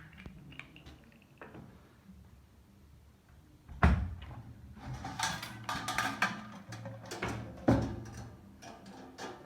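Knocks and clattering from a drum vacuum cleaner being handled: a sharp loud knock about four seconds in, a run of rattling clicks, then another sharp knock near the end.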